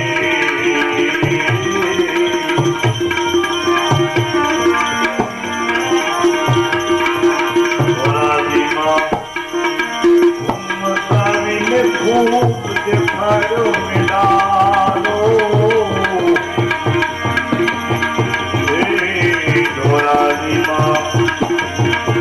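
Devotional bhajan accompaniment without singing: a tabla playing a steady rhythm under sustained melodic notes.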